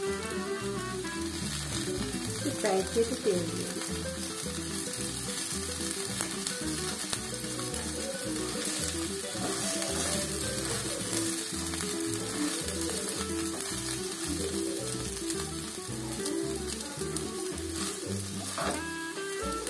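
Crepe batter sizzling on a hot oiled flat griddle (tawa), a steady hiss, with background music playing over it.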